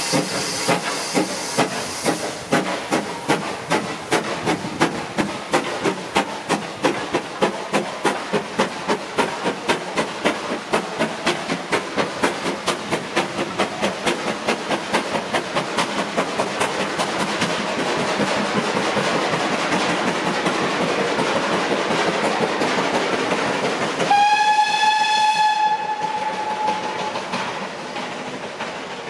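GWR Small Prairie 2-6-2 tank locomotive 5541 starting away with its train. A hiss of steam comes first, then a sharp exhaust beat that quickens and echoes off the valley side, merging into a steady rumble as it draws away. One steam whistle blast sounds near the end before the sound fades.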